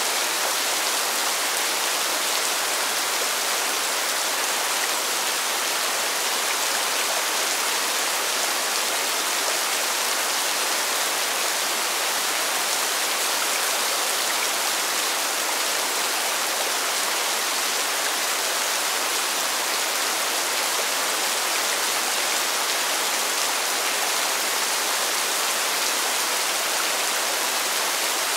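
Constant rain falling on pavement, an even, steady hiss with no let-up and no single drops standing out.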